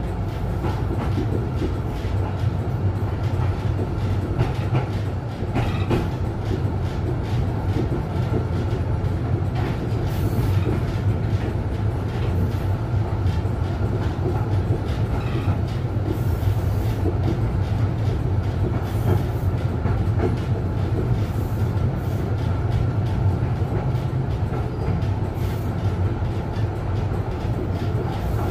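Interior of a 1960 Duewag GT8 tram under way: a steady low rumble of wheels on rails, with scattered clicks and rattles of rail joints and fittings throughout.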